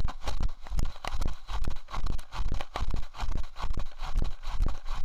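Rhodesian ridgeback running with an action camera strapped to its chest: a steady rhythm of thumps and rustling, a little over two a second, as each stride jolts the chest mount and harness.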